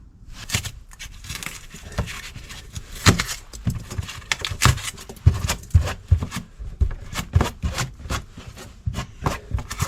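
Irregular knocks, taps and scrapes of hand work on the trailer wall and heater parts, with no steady rhythm.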